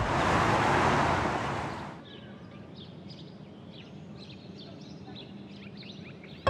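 A loud rushing noise that fades away over about two seconds, then a low outdoor ambience with small birds chirping.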